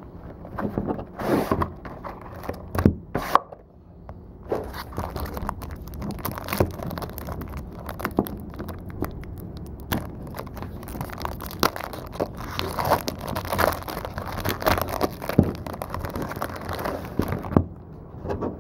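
Trading card packaging being opened by hand: a few sharp clicks and knocks, then a long stretch of dense crackling and crinkling with sharp snaps, like plastic wrap being torn off and handled.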